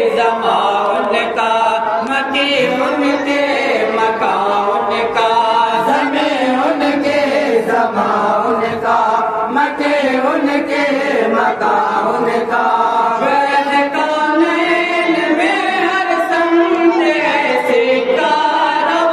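Men's voices chanting a melodic recitation together in unison, one voice amplified through a microphone, with long held notes and no break.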